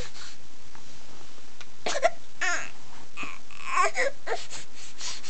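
Seven-month-old baby making short fussy squeals and cries: several brief calls rising and falling in pitch, clustered in the second half, with breathy sounds between them.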